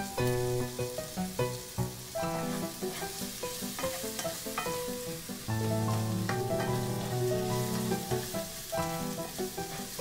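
Chopped onions sizzling as they fry in a pan, with background music of steady melodic notes playing over them.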